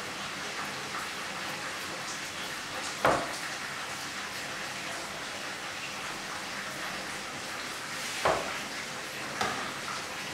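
Meat sizzling steadily in a frying pan, with three sharp knocks of kitchen work: one about three seconds in, then two near the end.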